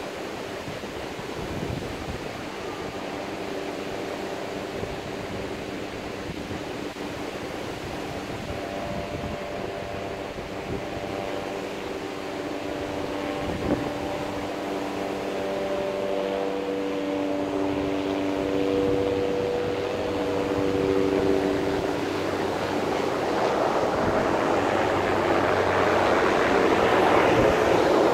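Helicopter flying by, its engine drone growing louder toward the end, over a steady wash of surf and wind.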